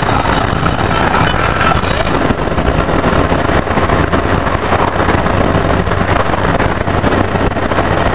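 Steady engine and road noise heard from inside a moving car, with a constant low hum under a dense rushing noise.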